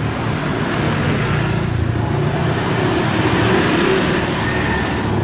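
Street traffic: cars and motor scooters running slowly in congested traffic, a steady mix of engine noise.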